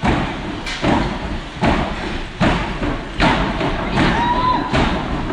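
Native dance drum beaten in a slow, steady rhythm, about one stroke every 0.8 seconds, each stroke ringing on in the large hall.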